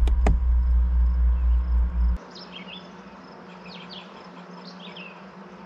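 Loud low rumble with two sharp clicks near the start, cutting off abruptly about two seconds in. Then songbirds chirping over a faint steady hum.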